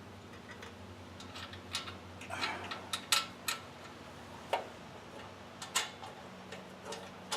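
Scattered light clicks and taps of a screw and hand tool being handled while a replacement carburetor's mounting screw is started into place, over a faint steady low hum.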